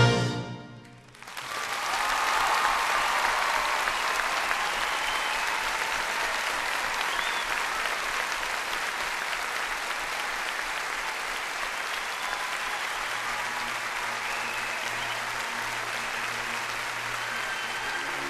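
A brass ensemble's held final chord cuts off, and about a second later a large theatre audience breaks into loud, sustained applause with scattered cheers. Low sustained tones join the applause near the end.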